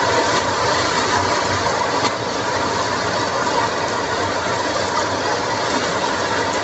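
Pounded chili, garlic and shallot paste with dried anchovies sizzling steadily in a wok as it is fried until cooked and stirred with a wooden spatula.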